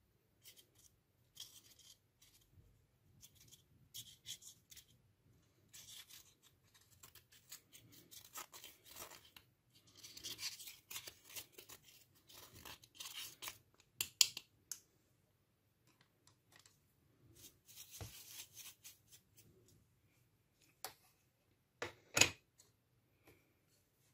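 Plastic spatula scraping pressed eyeshadow out of a compact's pan in short, irregular scratchy strokes as the powder crumbles. A sharp click near the end.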